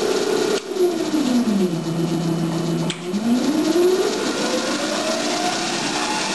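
The homemade wood lathe's VFD-driven electric motor whines as it is stepped through its speeds from the remote. It holds a steady speed, ramps down to a lower speed about a second in, and holds there. After a short break near the middle it ramps steadily back up to a higher speed.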